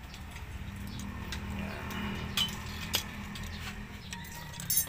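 A few light metallic clicks and clinks as a small steel lock piece is fitted by hand onto a new drum-brake shoe, over a steady low hum.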